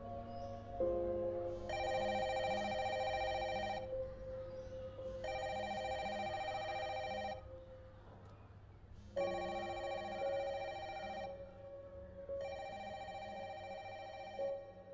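A phone ringtone ringing four times, each ring about two seconds long with short pauses between, over background music.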